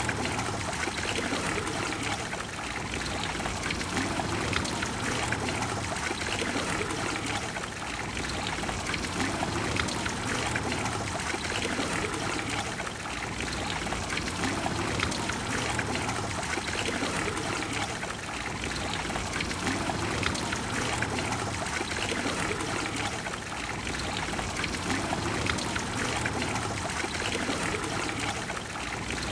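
Trevi Fountain's water cascading and splashing steadily into its basin, an even, unbroken rush of falling water.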